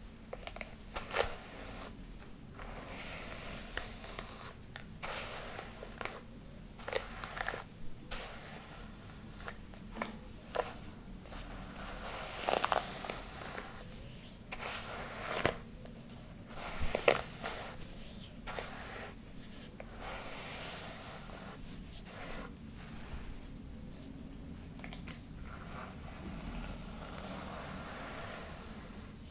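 Hair being brushed and rubbed close to the microphone: irregular soft scraping strokes with crisp crackles, the sharpest about a second in and twice in the middle.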